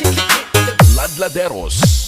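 Electronic battle-mix dance remix music with heavy, booming bass kicks, a warbling synth passage about halfway through and a rising hiss sweep near the end.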